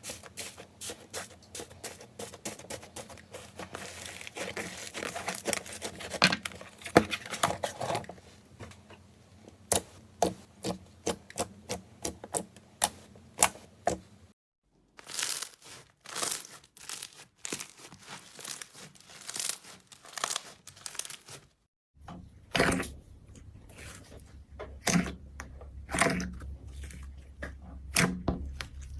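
Slime being squeezed, stretched and pressed by hand, giving dense crackling at first and then a run of separate sharp pops and clicks. Two brief gaps mark changes between clips, and a low hum sits under the pops near the end.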